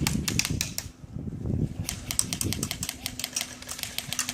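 Airsoft guns firing: rapid, irregular sharp pops from several guns, with a brief lull about a second in.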